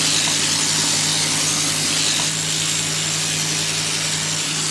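Sheep-shearing handpiece running steadily as it shears a fleece, a constant low hum under a high hiss.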